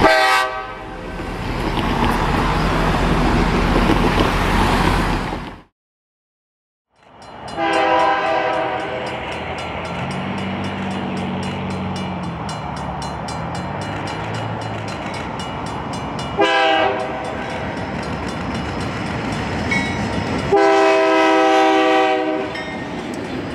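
Diesel freight locomotive air horns sounding several blasts of a multi-note chord over steady train and diesel engine noise. The sound drops out for about a second after the first blast, and there is a short blast midway and a long one near the end.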